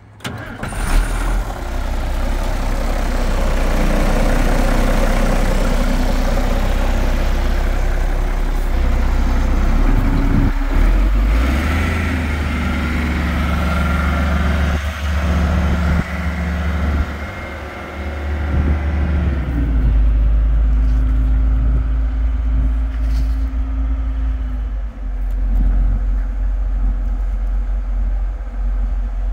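International grain truck's engine starting up at the very beginning, then running loudly. Its note changes several times.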